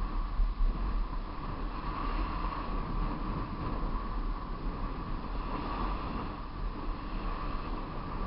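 Wind buffeting the microphone of a handlebar-mounted camera on a fast road-bike descent, a steady rushing noise with a continuous whirring hum running under it.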